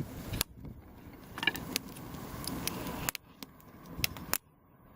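Ozark Trail 12-in-1 folding multitool being handled: a string of sharp metal clicks and light rattling as its tools are worked.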